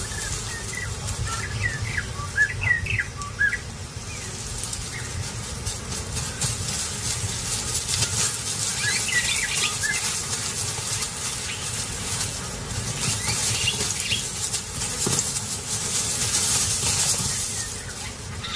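Small birds chirping in two short bursts of quick high chirps, the first starting about a second in and the second around nine seconds in, over a steady hiss and a low rumble.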